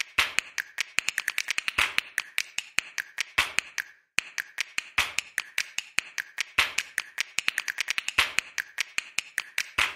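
A quick, uneven run of sharp clicks, several a second, each with a short ring, with a brief break about four seconds in.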